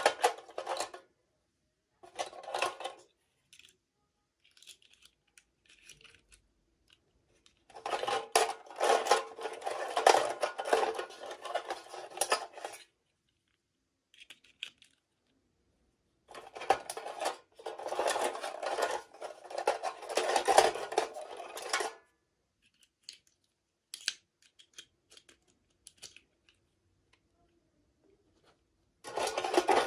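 Plastic toy packaging being handled and torn open in several bursts of crinkling and rustling, the longest lasting four to five seconds, with small clicks and taps of plastic pieces in the pauses between.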